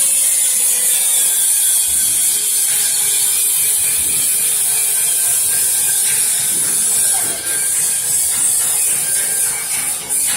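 Workshop machinery noise: a loud, steady high hiss with scattered clicks and rattles near the end.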